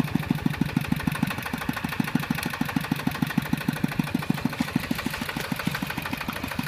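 Kubota RT140 Plus walking tractor's single-cylinder horizontal diesel engine running with a steady, even beat of about seven firing pulses a second.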